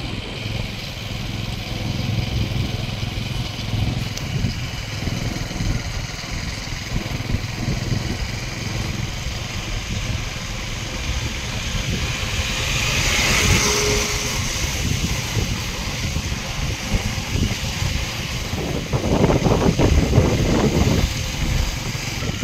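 Motorcycle engine running as the bike is ridden, a steady low rumble with wind on the phone's microphone. A brief hiss about halfway through, and the rumble grows louder near the end.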